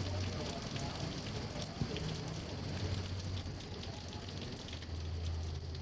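Steady rain falling in the wind of a tropical storm, an even hiss.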